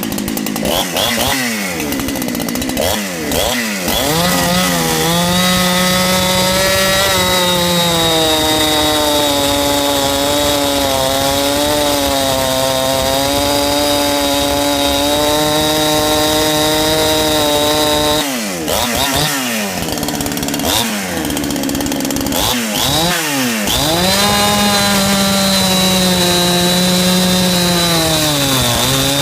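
Ported Hutzl (Farmertec) 372XP-clone two-stroke chainsaw with a decked cylinder, advanced timing and a dual-port muffler. It is blipped a few times, then held at high revs for about fourteen seconds. It drops back to a few more quick revs and is held high again near the end.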